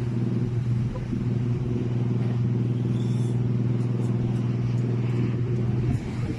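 Steady engine drone, a constant low hum that holds the same pitch throughout.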